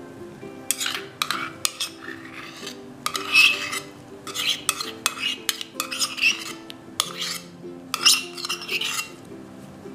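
Metal spoon scraping thick hoisin sauce out of a small stainless steel cup, in a run of short scraping strokes with metal clinks, and one sharp tap late on. Light background music underneath.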